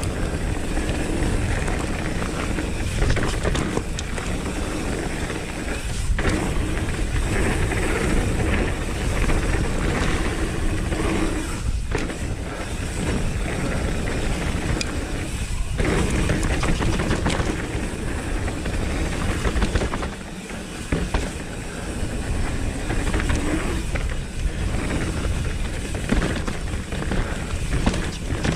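Wind rushing over an action camera's microphone, with the tyres rumbling over dirt and roots and the Nukeproof Reactor 275 mountain bike's chain and frame rattling over bumps as it rides downhill at speed.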